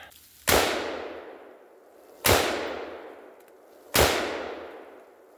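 Three single shots from a KelTec bullpup rifle in 5.56, evenly spaced about a second and three-quarters apart, each with a long echo rolling away behind it.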